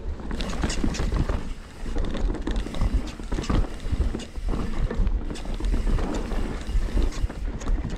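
Mountain bike running down a dirt trail: tyres crunching over the ground and the bike rattling over bumps in quick irregular clatters, with wind buffeting the microphone in a steady low rumble.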